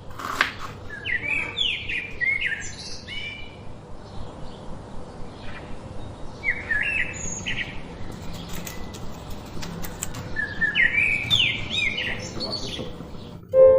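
A songbird singing three short bursts of quick, sweeping chirps a few seconds apart, over a steady outdoor background hiss.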